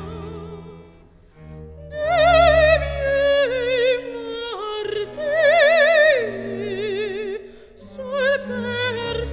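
Background music: an operatic voice singing long, wavering high notes over sustained low accompaniment, with a short lull about a second in.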